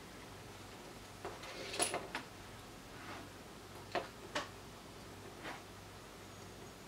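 Light clicks and taps of a small circuit board being handled on a cutting mat while it is soldered. There is a short cluster of taps about one and a half seconds in, two sharp clicks around four seconds and a softer one near the end.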